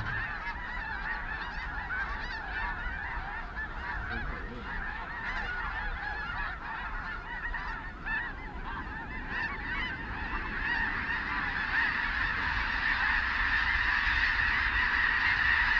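A huge flock of snow geese calling all at once: a dense din of countless overlapping high honks that grows louder in the last few seconds as the flock lifts off the field.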